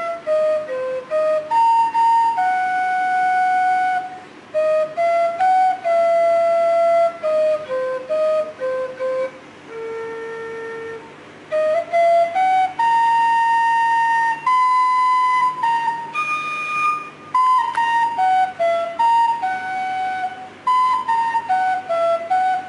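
A solo melody played on an end-blown duct flute, one clear note at a time, some held and some stepping quickly, in phrases with short breaks between them.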